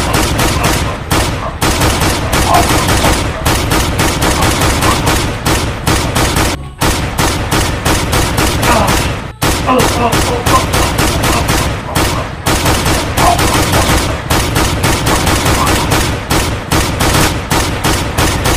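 Dubbed-in handgun gunfire sound effects, shot after shot at several a second, with a few brief breaks.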